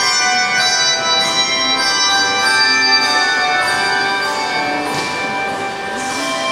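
Handbell choir ringing a piece: many bells struck in turn, their notes overlapping and ringing on.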